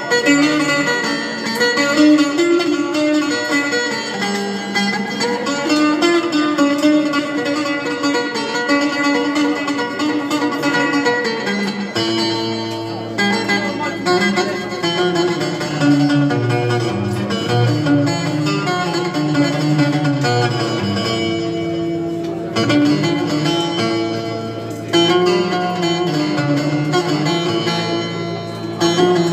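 Live music: a plucked string instrument playing a melody of quick notes, with lower notes coming in strongly about twelve seconds in.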